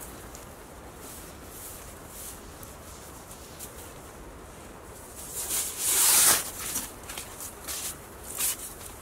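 Conifer boughs rustling as they are handled and laid down as a floor bedding layer, with one loud, long rustle about six seconds in and a few shorter ones after it.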